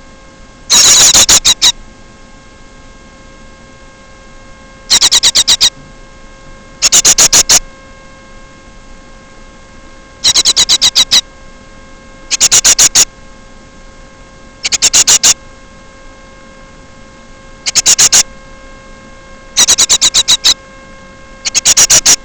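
A bird's loud rattling calls: short bursts of rapid high-pitched pulses, repeated at uneven intervals about every two seconds, over a steady electrical hum.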